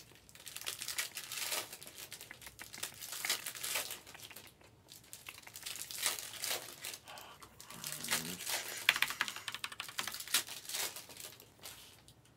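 Foil trading-card pack wrappers crinkling and tearing as packs are ripped open and handled. The rustling comes in irregular clusters of crackles with short pauses between them.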